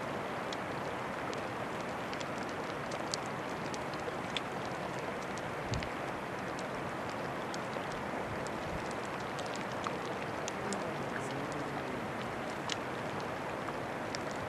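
Steady hiss of open water near a glacier face, with many small irregular crackles and ticks from floating glacier ice fizzing and popping as it melts, and a soft low thump about six seconds in.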